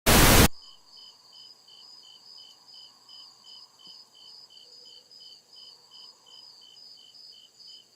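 A short loud burst of noise, then crickets chirping steadily at about three chirps a second.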